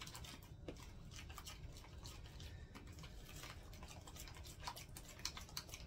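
Spoon stirring melted butter with minced garlic and parsley in a plastic bowl: faint wet scraping with many light clicks of the spoon against the bowl.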